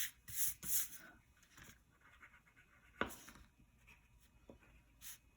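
White wax crayon rubbed on paper in a few short, scratchy strokes, with a sharp tap about three seconds in.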